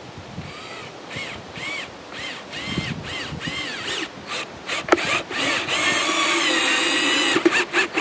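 Cordless drill driving stainless steel screws into a log: several short trigger pulses, each motor whine rising and falling, then a longer steady run about five seconds in as a screw goes in, ending in a few short pulses.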